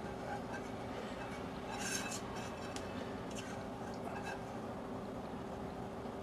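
Faint scrapes and light clinks from a stainless steel saucepan being tipped and scraped out over a glass bowl as a thick, syrupy butter and brown sugar mixture is poured in.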